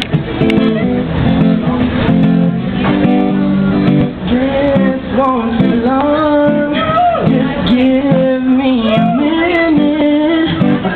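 Guitar strummed and picked, with a male singer's voice coming in about four seconds in and singing over it.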